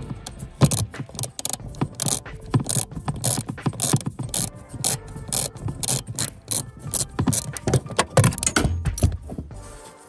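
Quarter-inch ratchet clicking in quick, irregular runs as it turns out a 7 mm bolt holding the heater blower motor resistor. The clicking stops near the end.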